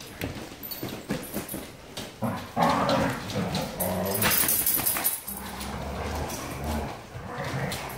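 Several large dogs play-fighting, with whining and growling vocalisations and scuffling clicks on the hard floor.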